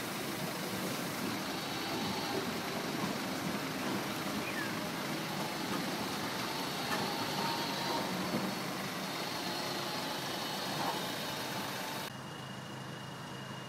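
Articulated low-floor tram passing close by at street level: a steady running rumble with faint thin tones over it. About twelve seconds in the sound cuts abruptly to a quieter street background with a thin steady high tone.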